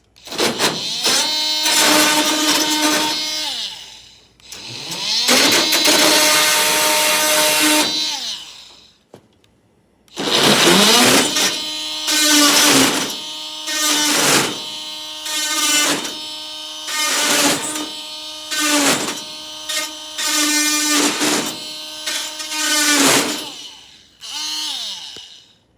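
Ryobi multi-tool cutting through hardware cloth in stop-start bursts. Each burst spins up to a steady whine and winds down when released. There are two longer runs first, then a quick series of short bursts about a second apart, and one brief burst near the end.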